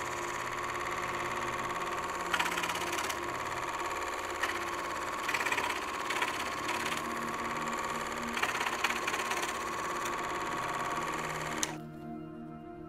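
Small tabletop scroll saw running steadily, its fine reciprocating blade cutting a thin wooden sheet, with louder rasping spells as the blade bites into the wood. The saw cuts off suddenly about a second before the end, leaving soft background music.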